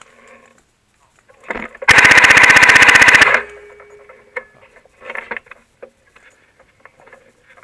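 Airsoft MG42 replica firing one rapid full-auto burst of about a second and a half, the shots evenly spaced, close to the microphone. A softer knock comes just before the burst.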